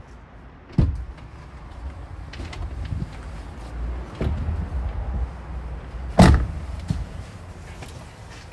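Toyota HiAce van doors being shut: two sharp thuds, the louder about six seconds in, with lighter knocks and low rumbling handling noise between.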